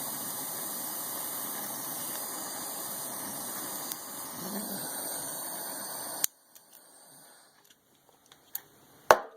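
Butane torch flame hissing steadily, then shut off abruptly about six seconds in. A few faint clicks follow, and one sharp click near the end.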